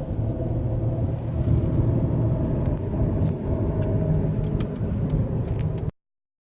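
Train rolling past: a steady low rumble with scattered sharp clicks, cutting off suddenly about six seconds in.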